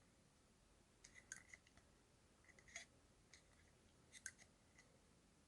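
Faint light clicks and taps from a small plastic toy being handled, in three small clusters over otherwise near silence.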